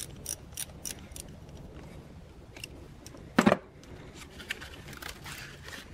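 A wrench turning the 10 mm nut on a car battery's positive terminal, clicking about three times a second for the first second, then a single louder knock about three and a half seconds in and some light scraping of metal on plastic near the end as the terminal is worked loose.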